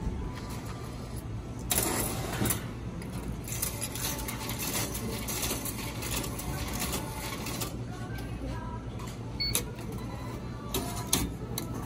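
Japanese meal-ticket vending machine taking payment and issuing a ticket: a run of clicks and mechanical clatter, then a few separate sharp clicks near the end as the ticket comes out.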